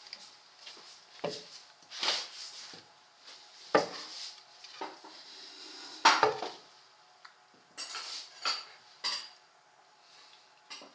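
Wooden balance board rocking under a baby's feet, its rim knocking and clattering irregularly on a tiled floor, with the loudest knock about six seconds in.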